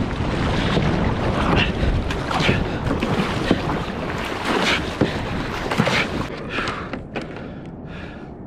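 Kayak paddle strokes splashing in choppy sea, about one a second, over wind buffeting the microphone. The wind and water noise ease off near the end.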